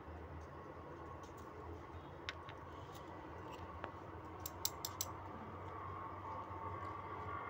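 A few light, sharp clicks and taps from handling a syringe and injection vial, the last a quick run of four, over a steady low hum.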